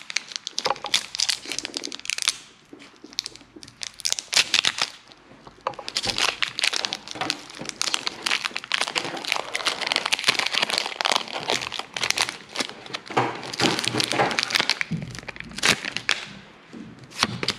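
Foil wrapper of a Pokémon TCG booster pack crinkling and crackling as it is worked open and torn by hand. The sound is quieter for a few seconds early on, then busier and louder.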